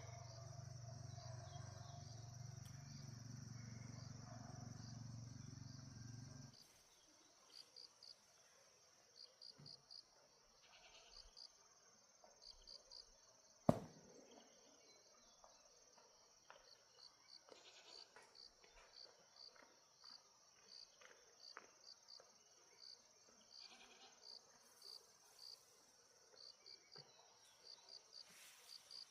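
Insects chirping in short high pulses about once a second over a steady high insect drone. A low hum stops about six seconds in, and a single sharp click comes about halfway through.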